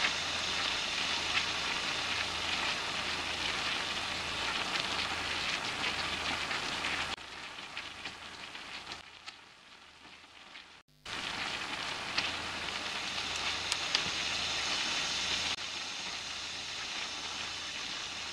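Chicken pieces frying in hot oil in a wok: a steady sizzle with scattered crackles and pops. It fades and nearly stops about nine seconds in, then comes back.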